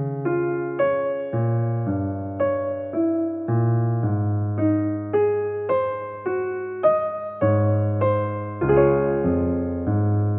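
Background keyboard music: a gentle piano-like melody of single notes struck about twice a second over held low notes.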